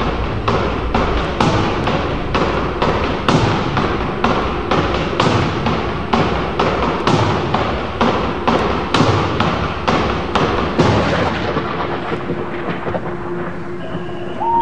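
Show soundtrack of heavy, reverberating percussive hits at a steady pulse of a little over two a second, fading away over the last couple of seconds. A held tone and a short falling whine come in at the very end.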